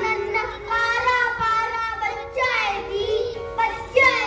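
Children singing a song with instrumental backing music.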